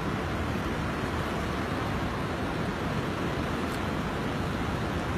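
Steady rushing noise of fast-flowing river floodwater.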